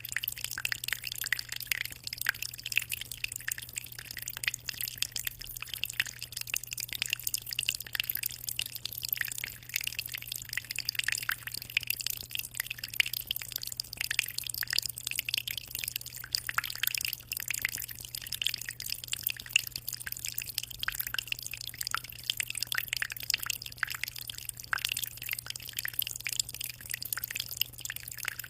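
Aquarium water trickling and splashing steadily, a constant patter of small drips and bubbles, over a low steady hum.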